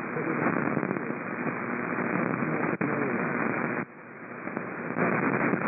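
Radio static hiss from weak broadcast reception, nearly drowning out the announcer's voice beneath it. The hiss dips briefly a little under four seconds in, then comes back.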